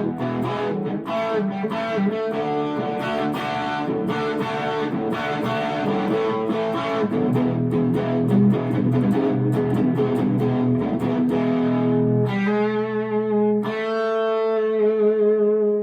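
Electric guitar played through an overdrive pedal into a Harley Benton guitar amp. A run of quick picked notes and riffs gives way, about twelve seconds in, to two strummed chords a second and a half apart, left ringing.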